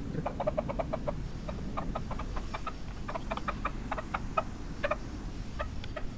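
Dogs shut in a parked car making quick runs of short whimpering yips, several a second with brief pauses, the sound of stressed, agitated dogs.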